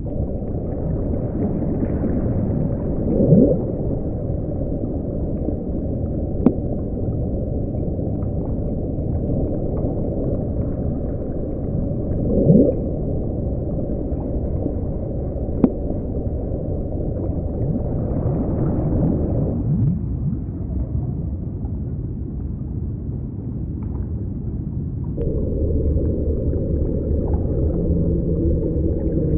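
Low, muffled underwater rumble with two short rising whale-like calls, a couple of sharp clicks, and steady low tones coming in near the end.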